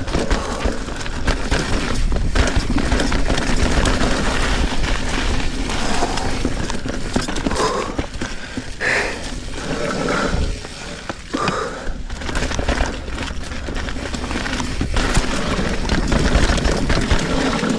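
A Trek Fuel EX 7 mountain bike being ridden on a sandy dirt singletrack, recorded on a GoPro: steady wind rush on the microphone and tyre noise, with frequent knocks and rattles from the bike over bumps.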